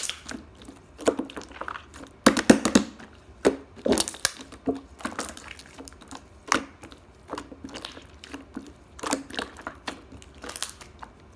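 Irregular crackling and crinkling, in quick clusters of sharp clicks with short pauses between them.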